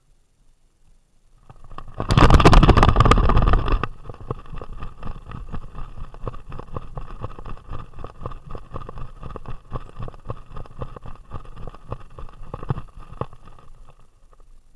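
Camera and mount on a running greyhound's harness vest being jostled: a loud rushing, rubbing burst about two seconds in, then a steady rapid rattle of knocks and jolts from the dog's strides that fades near the end.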